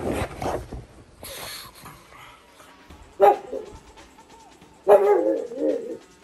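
Pug barking: a single short bark about three seconds in, then a longer, drawn-out bark that wavers in pitch about five seconds in. Rustling handling noise comes first, as the phone is moved.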